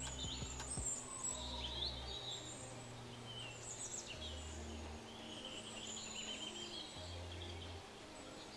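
Several birds chirping and trilling, with short high calls overlapping one another throughout.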